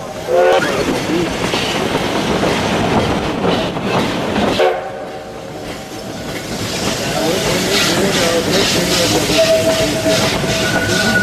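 Steam train rolling along at speed, heard from an open passenger car: the locomotive's steam whistle gives two short toots, about half a second in and again about four and a half seconds in, over the steady clatter of the cars. In the second half the locomotive's exhaust chuffs come through in a quick, even beat, and a thin steady squeal rises near the end.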